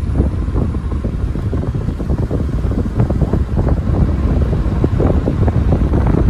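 Loud wind buffeting the microphone at an open car window while the car drives along, with rumble from the car and road underneath.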